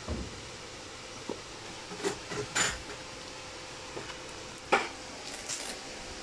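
A few short taps and clicks as a child's black Velcro-strap school shoes are put on and fastened on a tile floor, the sharpest two about two and a half and four and a half seconds in.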